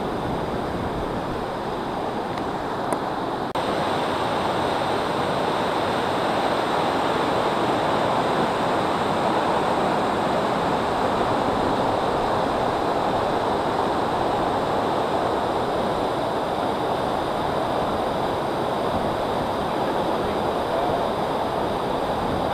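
Close rushing of a mountain waterfall, white water pouring steadily over rocks. It gets louder about three and a half seconds in.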